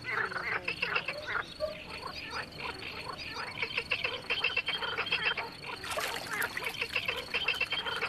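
A chorus of frogs and toads calling, many rapid, short croaks overlapping without a break.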